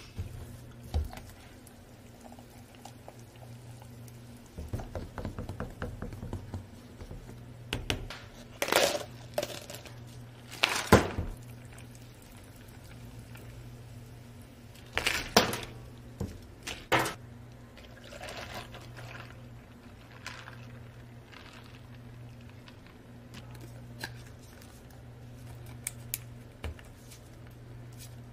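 Canned soda poured into a plastic cup of mango syrup, with sharp clatters of ice and plastic cups handled on a steel counter. A steady low hum runs underneath.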